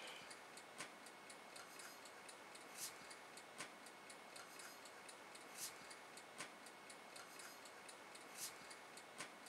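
Near silence with faint, sharp ticks: the louder ones come in pairs a little under a second apart, every three seconds or so, with fainter ticks between.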